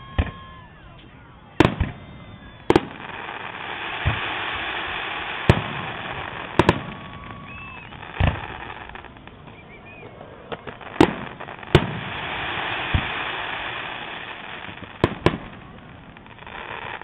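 Aerial fireworks shells bursting: about a dozen sharp booms at uneven intervals, some coming in quick pairs.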